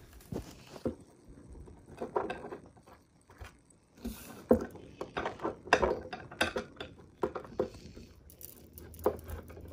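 Scattered light clicks and knocks of hands handling the vanity table's panel frame and its metal fittings, busiest from about four to eight seconds in.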